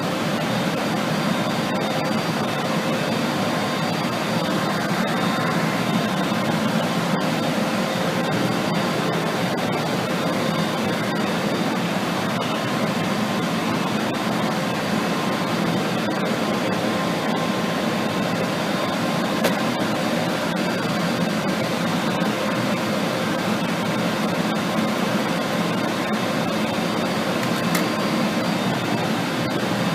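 Cooling fans of electronic equipment running steadily, a constant whooshing hum with a few faint steady tones and occasional light ticks.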